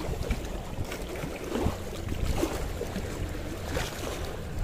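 Small sea waves washing against a concrete seawall and over rocks, with wind rumbling on the microphone.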